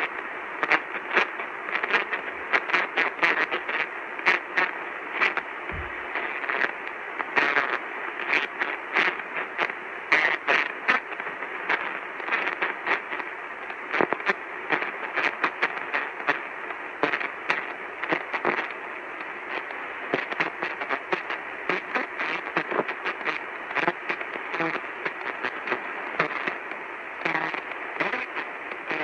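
Crackling radio reception static: a steady hiss full of rapid sharp clicks and pops, sounding thin and narrow like a weak broadcast signal.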